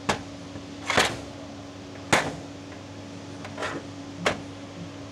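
About five sharp, short metallic knocks, irregularly spaced, from the metal oil-pump parts of a ZF tank gearbox being handled during dismantling.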